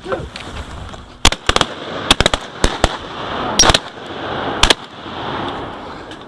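Rapid volley of about ten shotgun shots from several duck hunters firing together, starting about a second in and spread over three and a half seconds.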